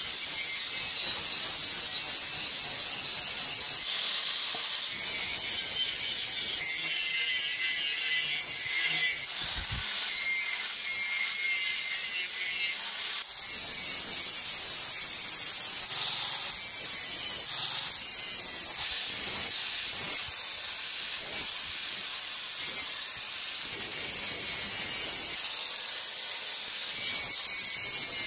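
Electric angle grinder with an abrasive disc grinding the edge of a steel machete blade: a steady high-pitched motor whine over a grinding rasp that swells and eases as the disc is pressed to the steel and moved along it, with a brief dip about 13 seconds in.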